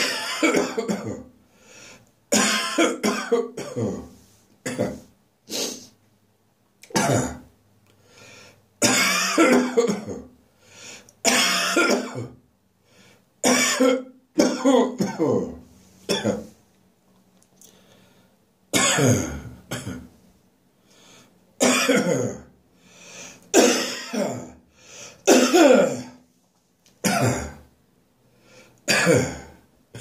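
A person coughing harshly and clearing the throat again and again, in bouts of short, loud coughs with brief pauses between them: a persistent morning cough that refuses to go away.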